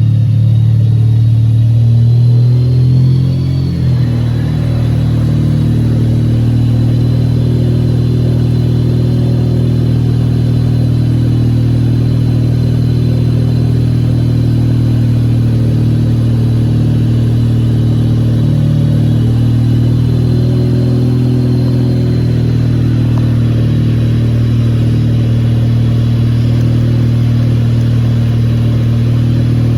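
Wankel rotary engine running steadily, its pitch settling slightly lower about three or four seconds in, with a faint steady high whine above it.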